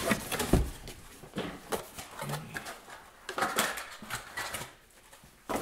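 Cardboard rustling and scraping with a few light knocks of hard plastic as a DeWalt DCCS670 battery chainsaw is lifted out of its box and set down on a wooden workbench.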